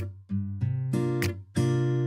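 Background music: acoustic guitar strumming chords, with a sharp percussive hit about every second and a quarter.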